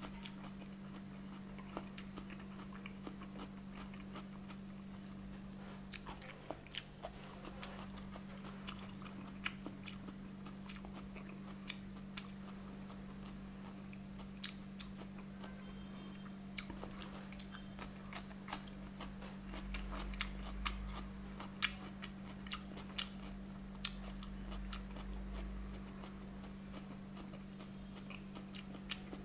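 Close-miked chewing and crunching of raw cucumber slices, with many sharp, irregular mouth clicks and crunches. A steady low hum runs underneath.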